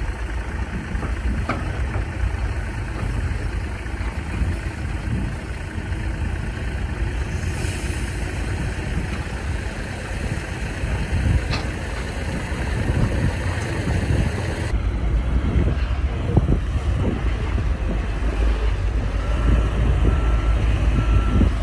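Heavy diesel earthmoving machinery running steadily with a deep rumble, and a reversing alarm beeping about three times near the end.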